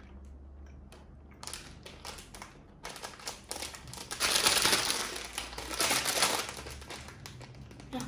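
Crinkling of a plastic candy wrapper being handled, sparse at first, then dense and loudest in the middle stretch before it tails off.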